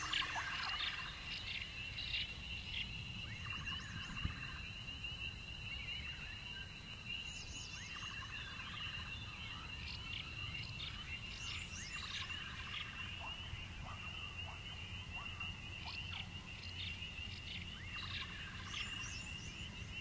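Night-time forest ambience: crickets trilling steadily, with bursts of frog calls every few seconds over a low background rumble.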